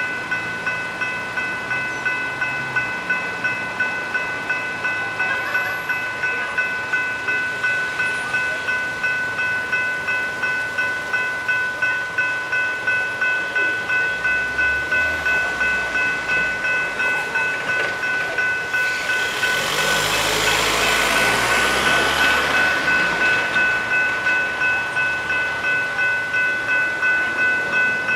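General Signals Type 3 electronic level-crossing bells ringing steadily, about two strikes a second, as the crossing is active. A train passes through partway in, its rumble and rushing noise swelling over the bells for a few seconds.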